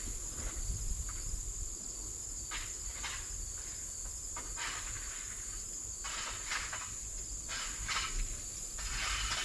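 Insects droning steadily at a high pitch, with a low rumble underneath and a few short rustling or scuffing sounds now and then.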